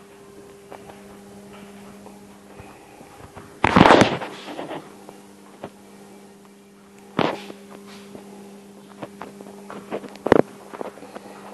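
A steady low hum, broken by a loud sharp bang about four seconds in, another knock about seven seconds in and a third about ten seconds in, with a few faint clicks between.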